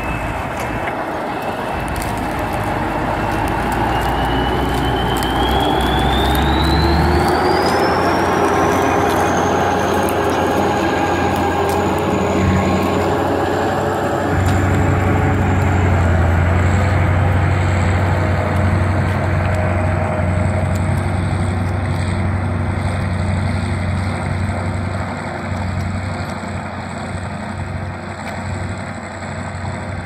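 Kirovets K-700-series articulated tractor's diesel engine working hard under load as it pulls a deep-ploughing plough: a steady heavy drone with a high whine that climbs over the first ten seconds or so and then holds.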